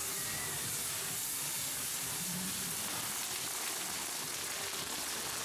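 Firework fountains on a castillo fireworks tower spraying sparks, a steady hiss and sizzle.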